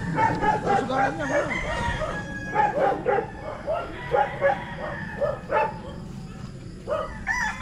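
Several gamecocks crowing and clucking, their calls overlapping one after another.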